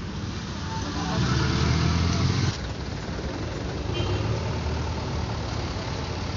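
Road traffic: a vehicle engine running as it passes, loudest for about a second and a half, then cut off abruptly about two and a half seconds in. A quieter, steady engine hum carries on after that.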